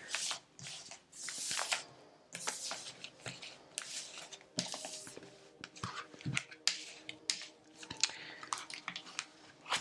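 Tarot cards being handled: irregular soft slides, flicks and light taps as cards are moved and shuffled.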